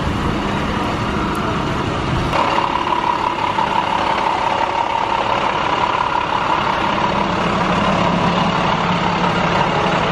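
Engine of a fire-rescue truck idling close by: a steady hum, with a high steady whine joining in about two seconds in.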